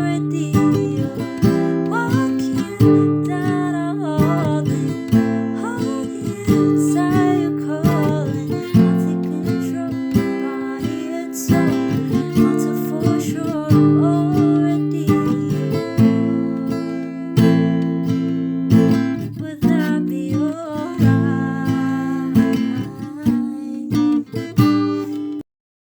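Acoustic guitar strummed in steady chords with a voice singing a slow melody over it. It cuts off abruptly near the end.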